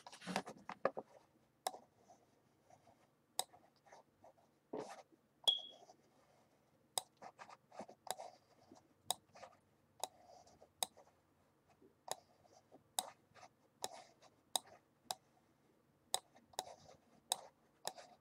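Computer mouse clicking: about twenty sharp single clicks at irregular spacing, some in quick runs of several a second.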